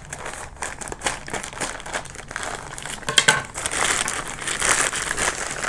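Plastic courier mailer bag crinkling and rustling as hands handle it and work its seal open, with louder crackling in the last couple of seconds.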